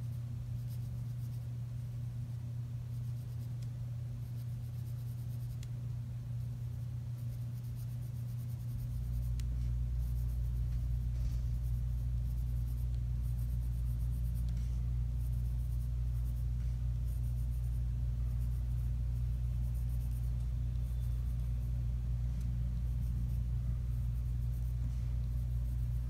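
Felt-tip pen scratching on paper in short shading strokes, over a steady low hum that gets louder about nine seconds in.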